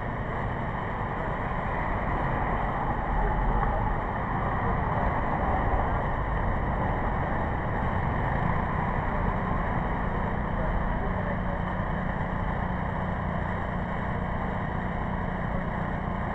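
Steady engine drone, running at an even pace with no revving or change in pitch.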